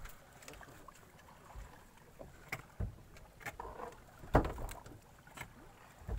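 Scattered knocks and thumps on a wooden boat deck as a landed giant trevally is handled, with one louder thump a little past the middle.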